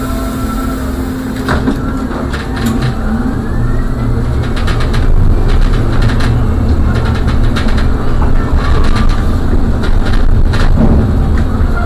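Trolleybus running along a wet road, heard from the driver's cab: a steady low hum and road noise with scattered clicks and rattles. A rising electric whine sets in about two seconds in, and the noise grows louder from about five seconds in as the bus gathers speed.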